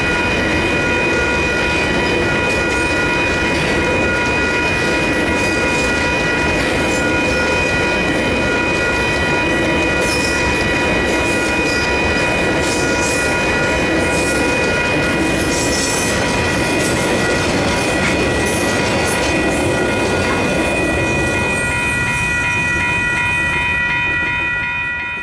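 KiwiRail freight wagons rolling past, their wheels clattering on the rails, with several steady high ringing tones over the rumble. The noise falls away as the last wagon clears near the end.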